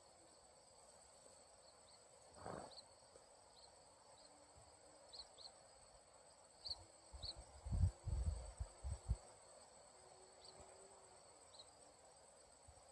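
Insects chirping steadily, with a short cluster of low thumps about seven to nine seconds in.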